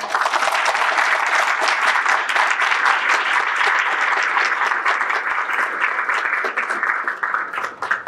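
Audience applauding steadily, stopping near the end.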